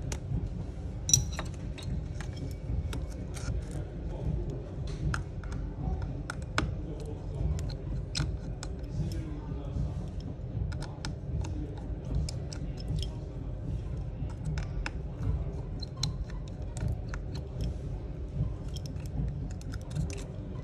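Light, irregular clicks and taps of a small metal tool and fingers on an opened iPhone 11's frame, flex cables and connectors, over a steady low rumble.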